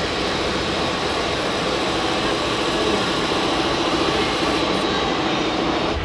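Radio-controlled model trucks' electric motors and gearboxes whining steadily under load.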